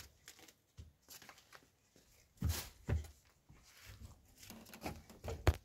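Flatbread being torn by hand, a light crackly rustling, with a few dull thumps of people moving on a carpeted floor.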